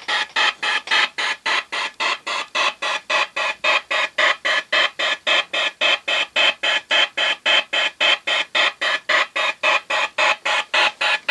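Model steam launch's steam engine running steadily, its exhaust chuffing in even, sharp puffs, about four a second.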